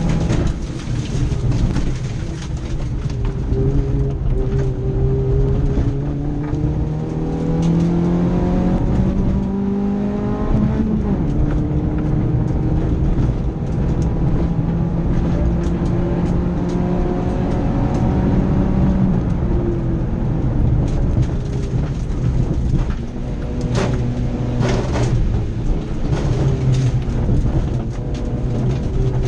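Rally car engine heard from inside the cabin, revving hard with its pitch climbing and then dropping at each gear change.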